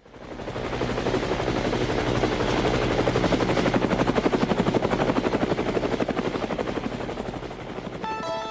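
A rapid, evenly pulsing mechanical chopping noise with a low hum beneath, fading in at the start and easing off near the end, when a melody of clear, sustained notes comes in.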